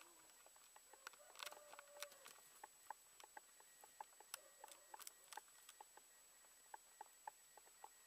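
Faint, irregular little clicks and crunches, a few a second, of young Vienna Blue rabbits nibbling at a carrot and bread in hay.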